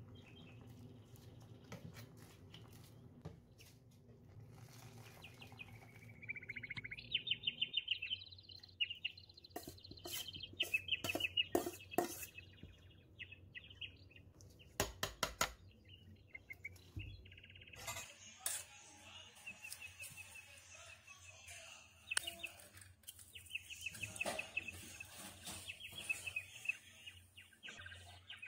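Birds chirping in rapid high trills, with sharp clinks and scrapes of a metal spoon against a pot, loudest about ten to fifteen seconds in.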